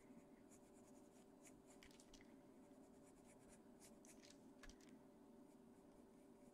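Faint scratching of a Caran d'Ache Pablo coloured pencil on paper in short, irregular strokes, over a steady low hum.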